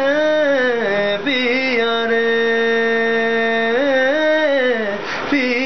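A man's voice singing long held notes without words, the pitch bending slowly up and down, with a short break about five seconds in.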